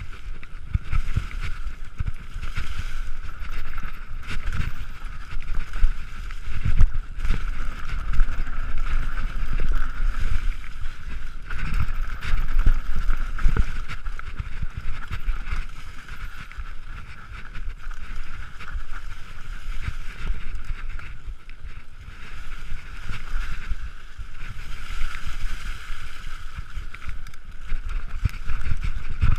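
Mountain bike descending a rough forest trail, heard from a camera on the rider: a continuous rattle of irregular thumps and jolts as the bike goes over roots and rocks, with wind rushing over the microphone and a steady high buzz.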